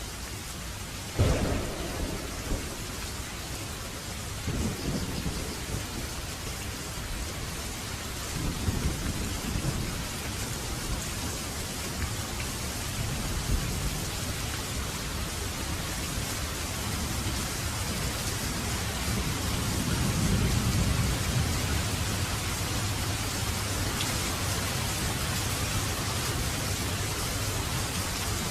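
Steady heavy rain falling, with a sharp thunderclap about a second in. Low rumbles of thunder roll in several more times, the longest and strongest about two-thirds of the way through.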